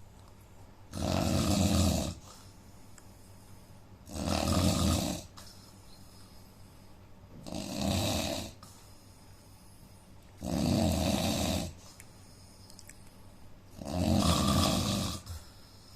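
A sleeping man snoring: five loud, rough snores, each about a second long and coming about every three seconds, which the uploader puts down to a problem with his nose.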